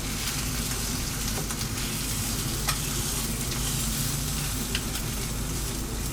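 Egg frying in a pan just after being flipped, a steady sizzle with a few sharp crackles.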